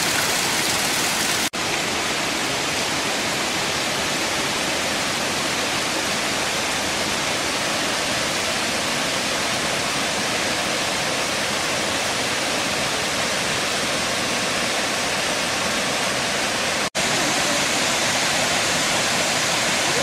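Kravica waterfall's falling water rushing in a steady, even roar, briefly cut off twice, once near the start and once near the end.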